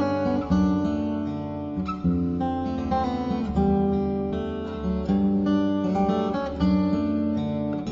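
Background music: acoustic guitar strumming chords, with a new strum about every second.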